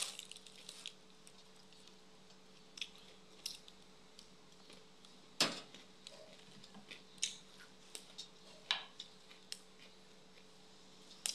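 Close-up eating sounds: a person chewing a mouthful of sticky rice and dried-fish dip, with mouth smacks and about eight short sharp clicks scattered through, the loudest about halfway, over a faint steady hum.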